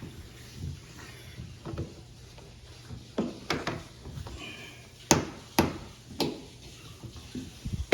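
A series of sharp knocks and clunks, about five between three and six and a half seconds in, the loudest about five seconds in, with quieter rubbing of parts being handled during washing machine reassembly.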